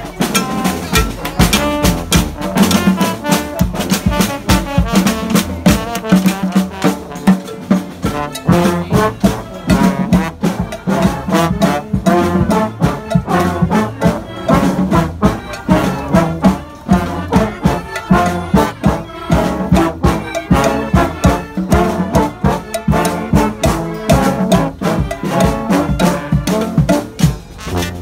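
Street brass band playing a tune together: trombones, sousaphone and horns over a steady drum beat.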